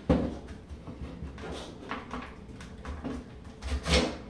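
Knocks and clicks of hard plastic and metal as the retractable stock of a GSG-522 .22 rifle is worked off the receiver on a table. There is a sharp knock at the start, light clicks through the middle, and a louder run of knocks near the end.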